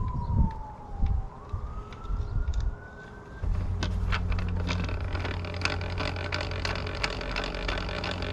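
An emergency-vehicle siren wailing, its pitch sliding down and then back up. About three and a half seconds in, a steady machine hum starts suddenly and runs on under scattered clicks and knocks.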